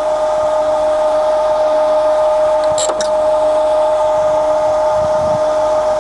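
Jones & Shipman 540 surface grinder's hydraulic pump running with a steady whine while the hydraulic table traverses and the cross feed is engaged. Two short clicks sound about halfway through.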